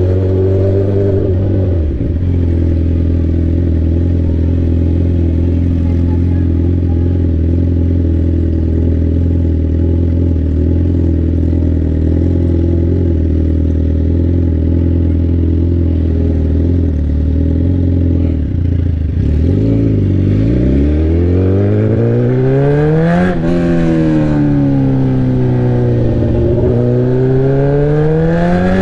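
Sport bike engine through a straight-pipe exhaust with no muffler, loud and holding a steady note for most of the time. In the last several seconds the pitch drops away, then climbs and falls in revving sweeps.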